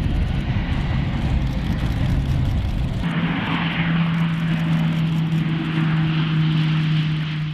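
Northrop Grumman E-2D Advanced Hawkeye's twin turboprop engines and propellers running loud. About three seconds in the sound changes suddenly to a steady propeller drone with a high hiss as the aircraft rolls along the runway.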